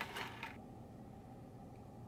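A breathy trail-off of the voice in the first half second, then a faint, steady low hum of a car cabin's background.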